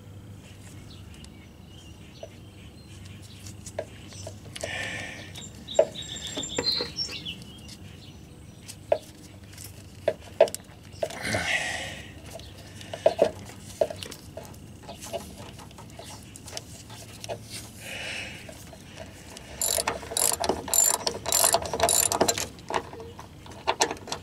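Hand work on wiring and connectors: scattered clicks, knocks and rustles. Near the end, a ratchet wrench clicks rapidly for a few seconds as the electric fuel pump's mounting clamp is tightened.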